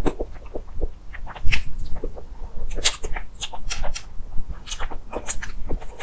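Close-miked chewing and wet mouth smacks from eating a cream-filled cake: irregular short smacks and clicks, a few a second.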